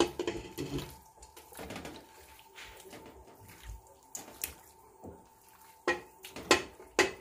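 Pieces of wet raw tripe and head meat dropped by hand into an aluminium pot with oil: soft wet slaps and squelches with occasional knocks against the pot, the loudest knocks near the end.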